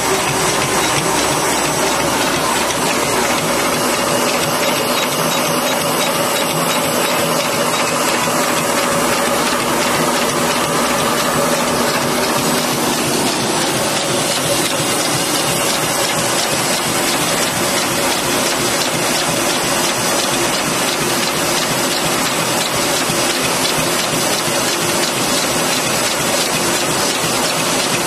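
Automatic desiccant packing machine running: a fast, even mechanical clatter from its gears and sealing and cutting mechanism, with a steady hum underneath.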